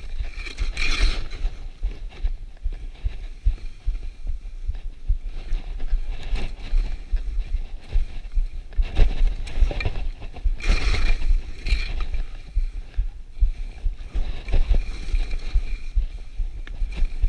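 Skis running down a groomed snow slope: wind buffeting the camera's microphone as a steady low rumble, with a hiss of ski edges on the snow that swells at each turn, strongest about a second in and again around nine to twelve seconds in.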